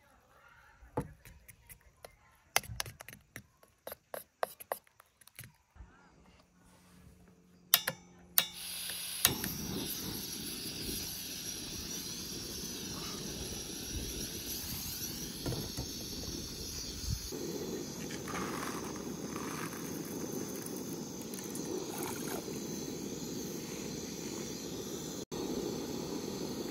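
A fork taps and scrapes against a bowl as eggs and grated cheese are whisked, a run of light clicks through the first six seconds. Two sharp clicks come about eight seconds in, then a portable gas canister stove's burner runs with a steady hiss that grows fuller a little past halfway.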